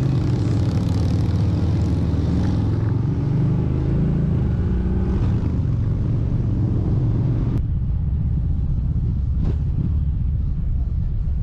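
Kawasaki Vulcan 1700 Vaquero's V-twin engine running while riding, with wind rush, its pitch rising and falling as the engine speed changes. About two-thirds of the way in, the higher sounds drop away abruptly, leaving mostly a low engine rumble.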